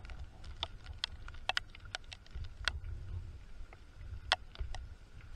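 Footsteps on a wet concrete path: scattered sharp taps and clicks at an uneven pace over a low, uneven rumble on the microphone.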